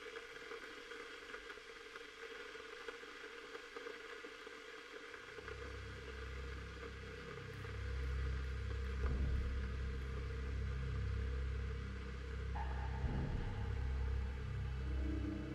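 Low, droning film score. Sustained deep bass notes fade in about five seconds in and shift pitch in steps under a steady higher hum, and another tone joins near the end.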